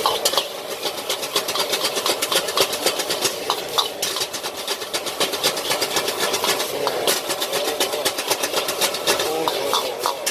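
Metal spatulas rapidly clacking and scraping on a flat iron griddle as chow mein noodles are stir-fried, several quick strokes a second over a steady hiss.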